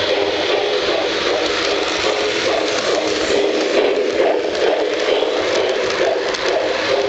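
Lionel model train running on its track: a steady rumble and whir of the wheels and motor, with light ticking as the cars pass close by about halfway through.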